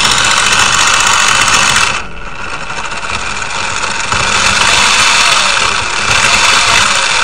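Small electric motor and gears of a toy RC car running with a high whir. It drops about two seconds in and picks up again around four seconds as its speed is changed from the controller.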